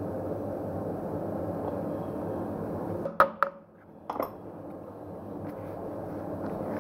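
Steady mechanical hum of the wheel balancer, broken about three seconds in by two sharp knocks and a third a second later as a clip-on balance weight is fitted to the wheel rim. The hum then swells back to its steady level.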